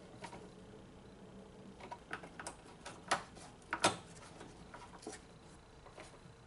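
A few irregular sharp clicks and knocks, like tools and metal parts being handled during work on the car, the loudest two about three and four seconds in.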